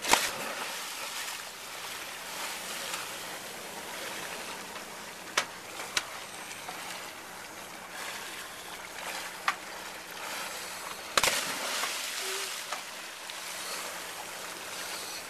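Scuba divers in drysuits jumping feet-first off the side of a dive boat into the sea: a splash right at the start and another about eleven seconds in, each followed by a short wash of churned water. Between them the water laps steadily against the hull, with a few sharp knocks.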